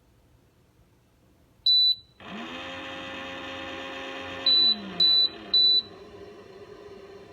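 Keurig K-Cafe coffee maker with milk frother: one high beep, then a small motor whirs up and runs steadily for about two seconds. It winds down as the machine gives three quick beeps, and a quieter hum carries on.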